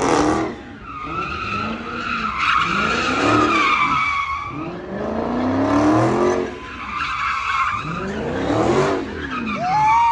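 A Dodge Hellcat's supercharged V8 revving up and down over and over while its tyres squeal and skid in a burnout or donuts. The squeal drops out briefly a couple of times and then comes back.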